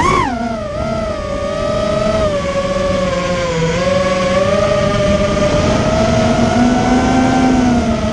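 ImmersionRC Vortex 250 Pro racing quad's brushless motors spinning on a test run: a steady whine that jumps up and drops back sharply at the start, then holds with slow, small drifts in pitch. The run checks bearings that had sounded bad and that the owner thinks are now fixed.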